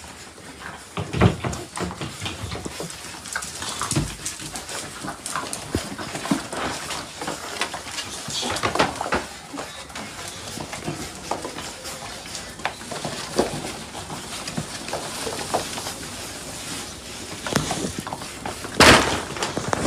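A litter of puppies yapping and scuffling over a tiled floor, in many short, irregular yips and scrabbles, with one louder, noisy burst near the end.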